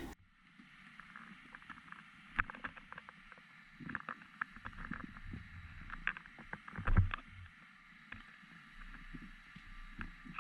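Muffled water sound picked up by a GoPro Hero7 in its underwater housing, lowered on a fishing line. Many small scattered clicks and crackles run over a faint hiss, with a louder dull thump about seven seconds in.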